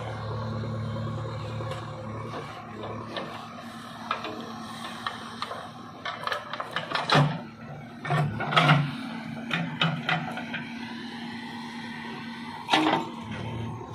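JCB 3DX backhoe loader's diesel engine running steadily while the backhoe bucket digs through stony earth, with several sharp knocks and scrapes of the bucket against soil and stones in the middle and one more near the end.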